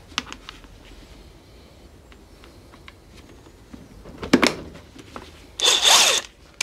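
Light clicks and a clatter of metal as a socket is handled at a DeWalt DCF899 cordless impact wrench. Near the end the wrench is triggered for about half a second and spins freely with a steady high whine, not hammering.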